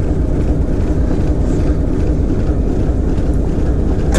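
Diesel engine of a TEM2UM shunting locomotive running steadily under load during post-repair load testing, heard from inside the cab. A sharp knock comes at the very end, after which the engine sounds a little quieter.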